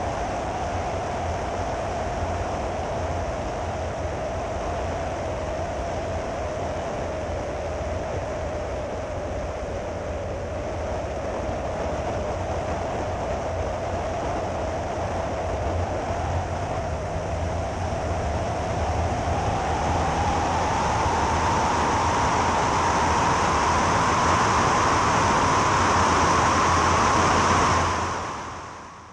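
Jodel D11's piston engine and propeller droning steadily; past the middle the pitch and loudness rise as the engine speeds up, then the sound fades out near the end.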